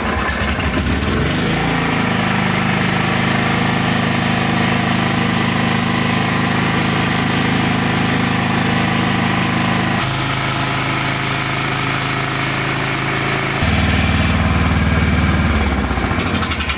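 Kohler Courage single-cylinder engine of a John Deere L110 riding mower, just started on choke, picking up speed in the first two seconds and then running steadily, with its speed dropping about ten seconds in and again shifting a few seconds later before winding down near the end. Running on fresh fuel it runs good, showing that the customer's old fuel is what made it run rough.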